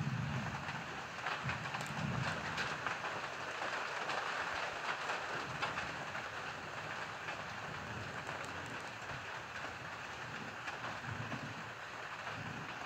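Steady rain falling in a summer thunderstorm, an even rushing hiss with brief low rumbles now and then.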